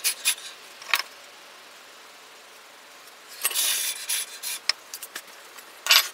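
Dry brushing and wiping strokes as loose molding sand is cleared off a sand mold and a wooden workbench. There are a few short strokes early, a longer stretch of rubbing midway, then light clicks and a sharp rattle near the end.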